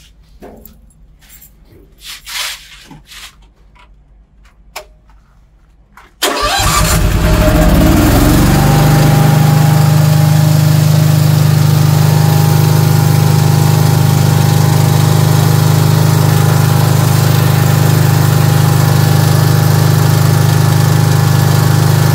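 A few faint clicks and knocks, then about six seconds in the Firman 10 kVA petrol generator's engine starts, picks up speed over a couple of seconds and settles into a steady run.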